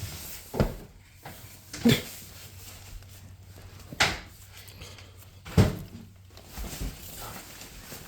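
Irregular knocks and bumps of objects being handled: four sharp ones spaced one to two seconds apart, then a few softer ones near the end.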